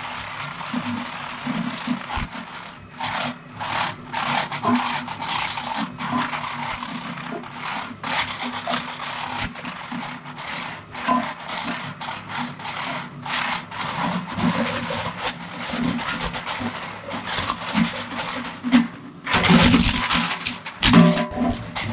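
Twin-shaft industrial shredder's toothed cutter discs chewing a hard plastic toy: irregular cracking, snapping and scraping of plastic over a steady low machine hum, with louder, heavier crunching near the end.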